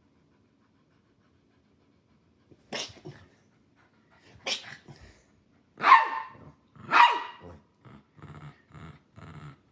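A dog barking: four loud barks about a second apart, then a steady run of shorter, softer grumbling barks, about two a second.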